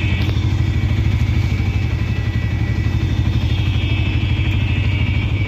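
Auto-rickshaw engine running steadily as the rickshaw drives along, a loud low pulsing drone.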